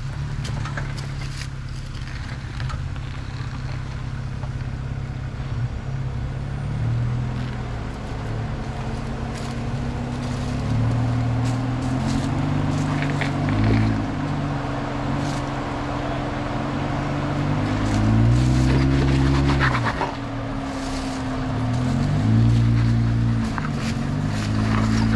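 Jeep Wrangler engine running low, then from about ten seconds in revving up and down in repeated throttle blips as it crawls over rocks, with scattered sharp clicks and crunches.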